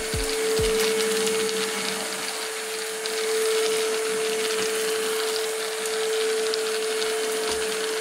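iWoly C150 cordless stick vacuum running, a steady whine from its motor over the hiss of suction as the floor head is pushed across the floor.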